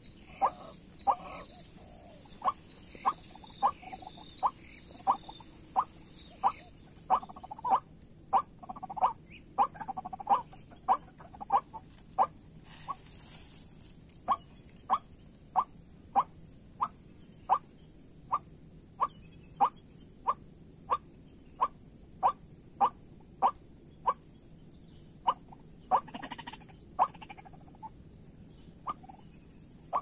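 White-breasted waterhen calling: a long, monotonous run of short, harsh 'kwak' notes repeated evenly, a little under two a second. A steady high insect drone runs underneath.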